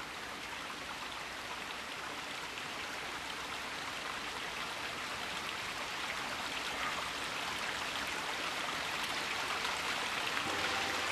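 Steady rushing of water, slowly growing louder. Soft music comes in near the end.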